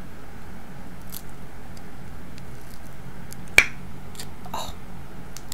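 Snow crab leg shell snapped apart by hand: one sharp crack a little past halfway, with a few fainter clicks of shell being handled around it.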